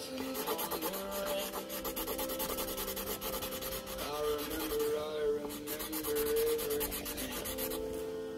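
Sharpie marker colouring on paper, a scratchy rubbing of quick back-and-forth strokes, with a song playing from a smart speaker underneath.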